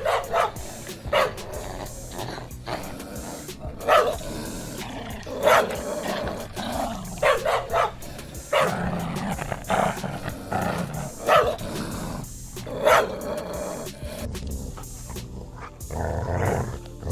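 Dogs fighting: sharp, loud barks every second or two, with growling between them and a longer, deeper growl near the end.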